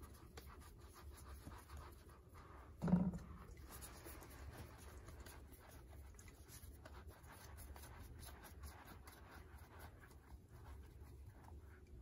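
Faint soft rubbing and squeezing of bannock dough in floury hands over a stainless steel bowl, over a steady low hum. A short, louder low sound comes about three seconds in.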